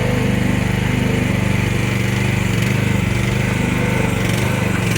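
Chinese mini excavator's small engine running steadily while the machine works.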